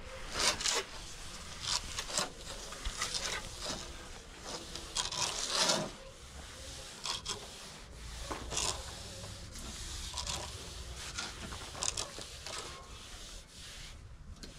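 Irregular scraping and rubbing strokes of a hand tool against rough cement plaster on a wall edge.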